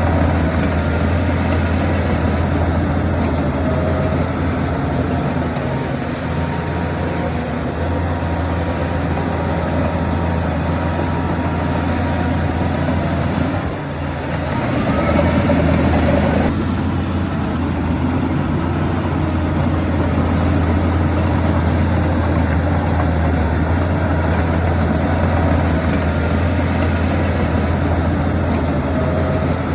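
Diesel engines of heavy earthmoving machinery running steadily with a deep hum. About halfway through the sound dips briefly, then runs louder for a couple of seconds before dropping back abruptly.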